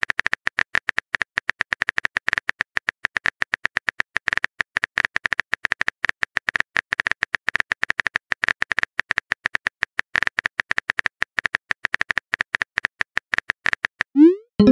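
Smartphone on-screen keyboard typing sound effect: a rapid run of short, identical key clicks, several a second.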